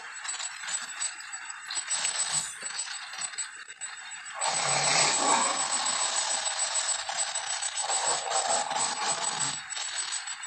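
Noisy rattling and scraping cartoon sound effect, growing louder and fuller about four and a half seconds in.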